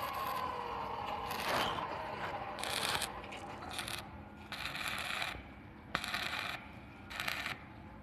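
Stick arc welding on steel tubing: the arc crackles in short bursts of under a second, about six of them, each with a pause between. A machine whine fades out in the first second and a half.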